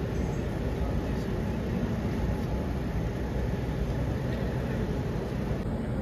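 Steady low rumble of a large crowd milling in a packed hall, an indistinct hubbub with no single voice standing out.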